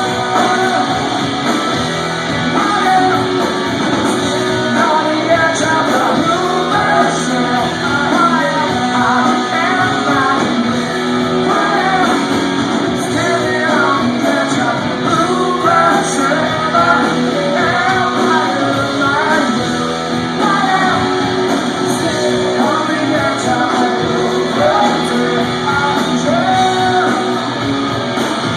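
Live rock band playing: guitar with a singer's voice over it, loud and steady throughout.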